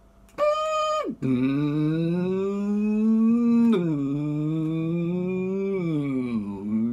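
A man humming with closed lips. He holds a brief high note, then a long low hum that slides slowly upward, drops suddenly, holds, and glides down near the end.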